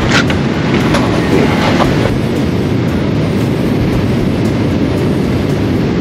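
Steady low rumble of wind and road noise on a riding motorcyclist's microphone, with a few short rustles in the first two seconds.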